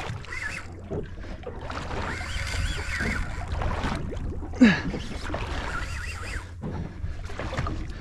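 Wind and water rumbling against a small boat while a fish is fought on rod and reel, with swells of hiss, and one short loud sound falling in pitch about four and a half seconds in.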